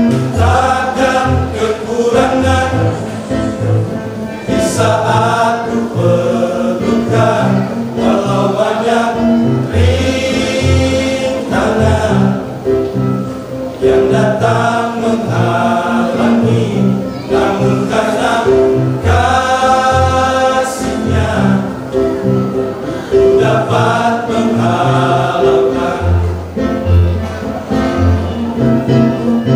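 Church choir singing a gospel song in several parts over a steady, stepping bass line.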